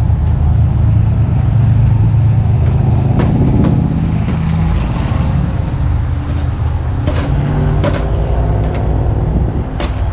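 Snow-plough vehicle's engine running steadily as it clears ice from a parking lot, with a few sharp knocks along the way.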